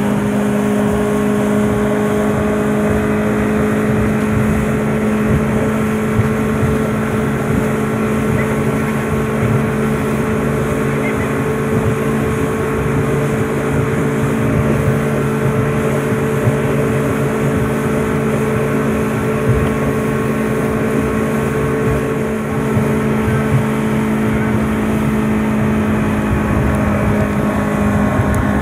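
Motorboat engine running steadily at speed while towing an inflatable tube, heard from on board over the rush of water past the hull.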